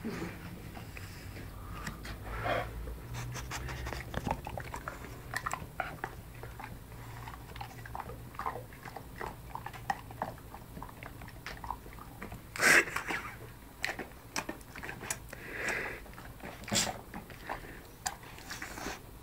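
An old bulldog chewing and crunching through a large slab of Toblerone chocolate: irregular crunches and chomps, the loudest about thirteen seconds in.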